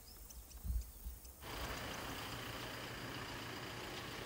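Faint outdoor background: a few low thumps and tiny high chirps, then, after an abrupt change about a second and a half in, a steady low hum with an even hiss.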